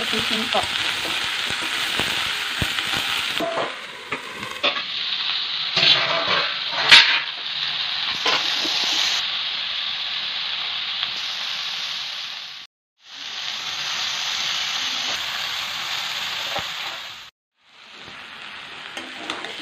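Mixed vegetables sizzling in oil in a steel kadai while a metal spatula stirs them, with sharp clicks and scrapes of the spatula against the pan. The sound cuts out briefly twice in the second half.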